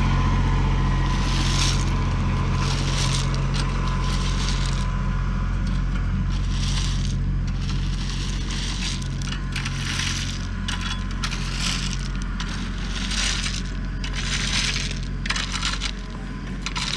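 Rake scraping and rattling through rocky dirt in repeated short strokes, over the steady hum of a running tractor engine.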